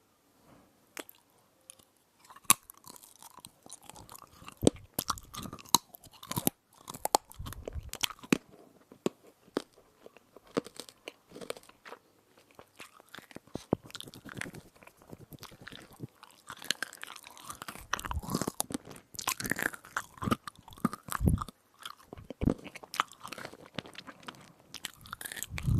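Close-miked crunchy chewing of an edible spoon: irregular crisp crunches and bites, starting after a near-silent first two seconds.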